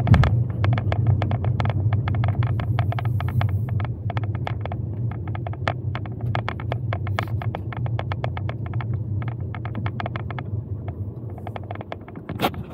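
Low engine and road rumble inside a car's cabin as it drives slowly, with rapid, irregular sharp clicks several times a second throughout; the rumble eases near the end.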